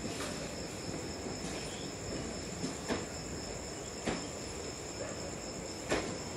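Night insects, crickets, trilling steadily at a high pitch over a low, even rumble, with a few short sharp clicks about a second or two apart.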